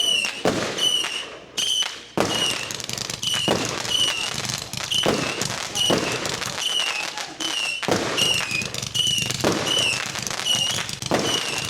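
Consumer fireworks going off: sharp bangs about every second and a half, with crackling between them. A high chirp repeats about twice a second underneath.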